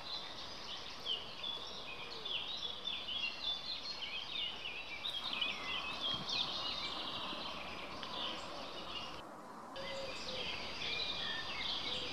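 Small birds chirping and twittering without pause, many short overlapping calls, with a brief dropout in the sound about nine seconds in.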